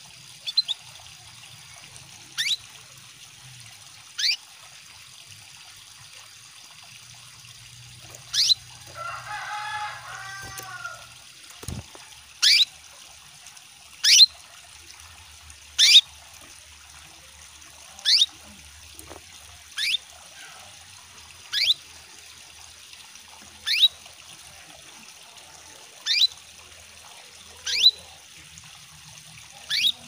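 Female canary calling: short, sharp, falling chirps repeated about every two seconds, the calls of a female in breeding condition calling a male. Over a steady trickle of running water, with a brief lower warbling about nine seconds in.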